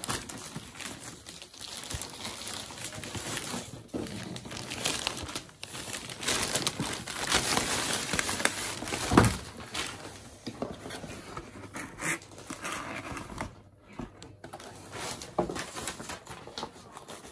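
Paper and plastic packaging crinkling and rustling as new boots are unwrapped by hand, in irregular handling bursts that are busiest in the middle, with one solid thump about nine seconds in.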